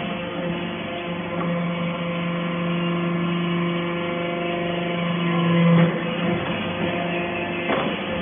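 Hydraulic metal-shavings baler running: a steady machine hum that grows louder and then drops off abruptly about six seconds in.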